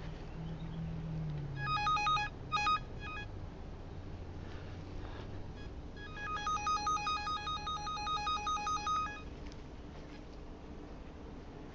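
Electronic beeping from a buried-cable locator's handheld receiver picking up the tracing signal: a short cluster of beeps about two seconds in, then a quick, even run of beeps for about three seconds from around six seconds in.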